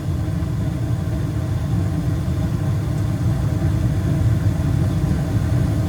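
2006 Carrier gas furnace running just after startup, its five gas burners lit and the draft inducer motor going: a steady low rumble.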